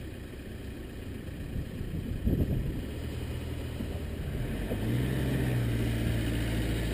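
A motor vehicle's engine running with a low steady hum that grows louder about halfway through, with a single knock a little over two seconds in.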